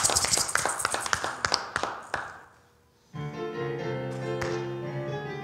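Keyboard instrument starting sustained chords about three seconds in, introducing the sung congregational response. Before that, the rattling, clapping noise of the congregation fades out, with a brief silence between.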